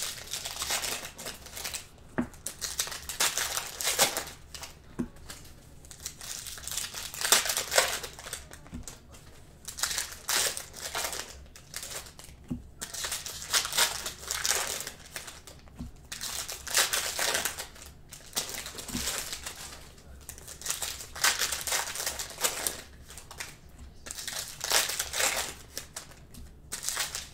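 Plastic wrappers of trading card packs crinkling in repeated bursts as the packs are handled and pulled out of their boxes, with a few light knocks.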